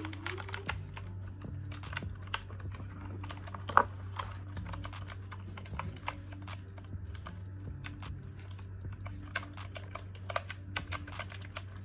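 Redragon Kumara K552 mechanical keyboard typed on rapidly with both fingers and hands, a fast, irregular stream of key clicks, with one sharper clack about four seconds in.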